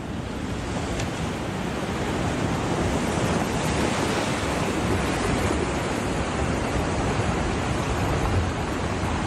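Storm-surge seawater rushing and churning as it floods over the ground and through a building: a steady, loud rush of turbulent water that swells in over the first couple of seconds.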